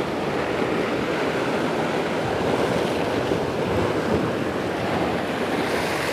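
Sea surf washing against shoreline rocks, a steady noise with wind buffeting the microphone.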